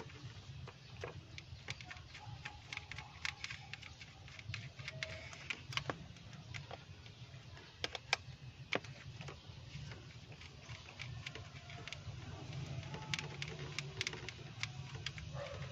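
Scattered light clicks and taps at an irregular pace, a few sharper ones around the middle, over a low steady hum.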